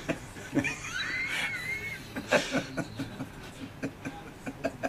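A man chuckling, over short scrapes and knocks from hand tool work on wood, with a brief high rising-and-falling squeak about a second in.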